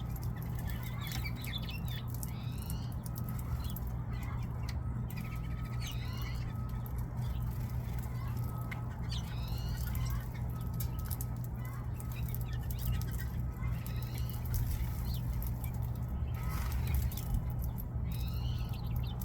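Birds calling: short sweeping chirps repeated every second or two over a steady low rumble.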